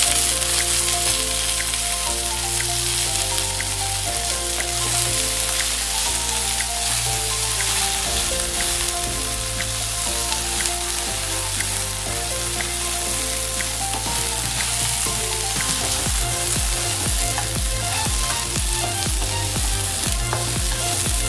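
Food frying in hot oil in a pan, a steady dense sizzle, under background music.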